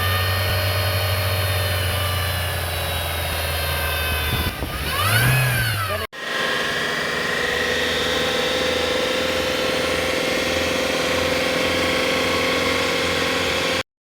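A car with a CVT transmission running with a whine from a damaged drive belt. About five seconds in the engine revs up and back down. After a sudden break a steady whine follows, rising slowly in pitch, and it cuts off abruptly near the end.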